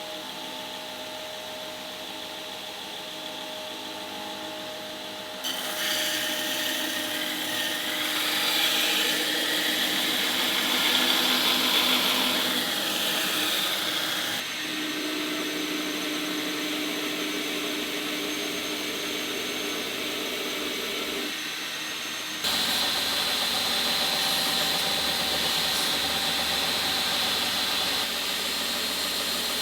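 Workshop power tools running steadily in a series of cut-together clips, changing abruptly three times. The second and last clips are louder, with a harsher grinding noise.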